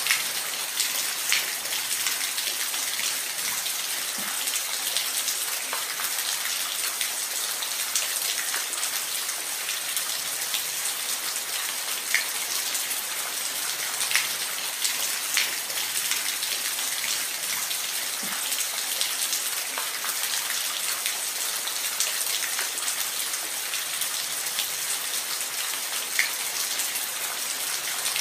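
Falling water in a steady, even hiss, with scattered sharper splashes of single drops now and then.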